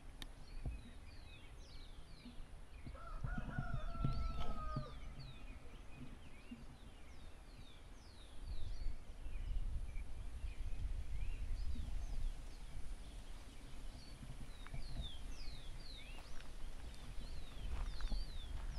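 A rooster crowing once, about three seconds in, for about two seconds, among many short, high chirps of small birds.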